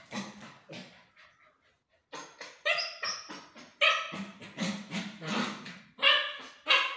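A 65-day-old Labrador puppy yipping and barking in a run of short, high calls, with a pause of about a second near the start.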